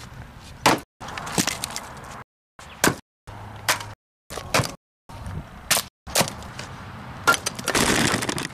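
Splitting maul striking logs on a chopping block, the seasoned wood cracking and splitting apart. About six sharp blows come in short snippets, broken by sudden brief silences between cuts.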